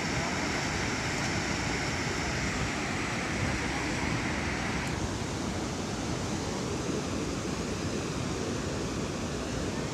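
Steady rushing noise of moving water, with a higher hiss on top that cuts off about five seconds in.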